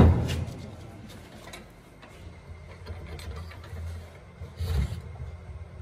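A heavy stack of metal plates handled on a wooden workbench: a thud as it is set down at the start, light clicking of the plates as it is straightened, and another knock near the end, over a low steady hum.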